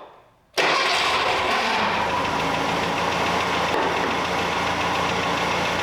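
The warmed-up 1.3-litre four-cylinder J13 engine of a 1968 Datsun 520 pickup idling steadily, coming in abruptly about half a second in. It has a light tick that the owner puts down to valves needing adjustment.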